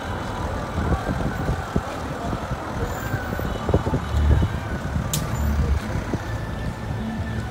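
Engine and road noise of a car driving along a street, heard from inside the car as an uneven low rumble, with a short sharp click about five seconds in.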